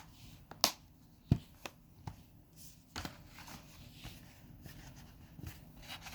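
Plastic DVD case and discs being handled: a few sharp clicks in the first three seconds, with light rustling between and after them.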